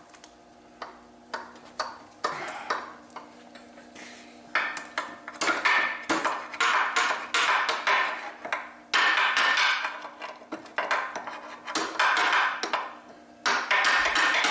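Metal clinking and rattling as a seized piston and broken connecting rod are wiggled out of the cylinder of an Ingersoll Rand 2545 compressor pump. There are a few scattered clicks at first, then repeated bursts of clatter from about four seconds in.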